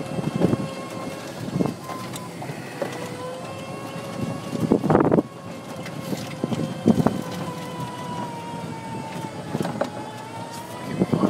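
Golf cart climbing a steep concrete cart path: a steady motor whine that dips and rises slightly in pitch, over rattles and knocks from the cart body and wind on the microphone. A louder rush comes about halfway through.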